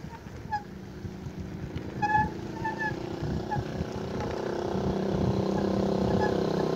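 A motorcycle engine approaching, its steady note growing louder through the second half, over wind rumble on the microphone of a bicycle coasting downhill. Short bird calls in the first few seconds.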